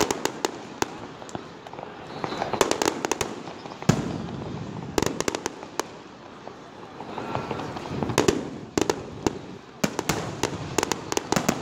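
Aerial fireworks shells bursting overhead: a string of sharp bangs and crackles, coming in quick clusters several times.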